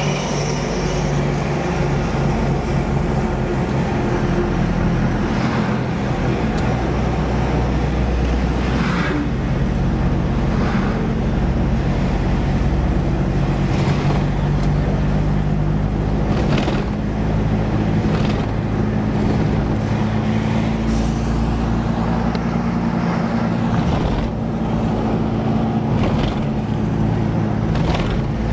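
A road vehicle driving at steady speed: constant engine hum with tyre and road noise, heard from inside the vehicle. Short rattling bumps recur every few seconds as the tyres cross rumble strips.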